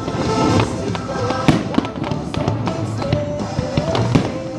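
Fireworks shells bursting, with sharp bangs: two close together about a second and a half in and another near the end. Music with a melody plays underneath.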